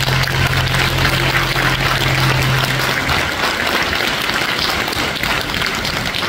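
Audience applauding in a hall. A low held note of the backing music sounds under the clapping and stops about three seconds in.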